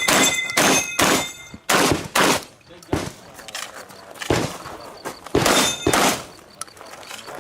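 Shotgun firing a string of about seven shots at uneven spacing, two or three close together near the start and more past the middle. A metallic ring follows some of them, typical of steel targets being hit.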